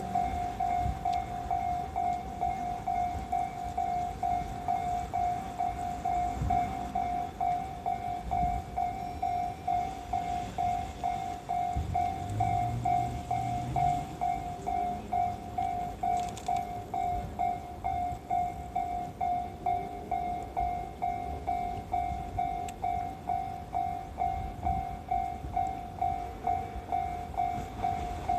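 Japanese railway level-crossing warning bell ringing, an electronic ding repeating evenly about twice a second, the signal that a train is approaching.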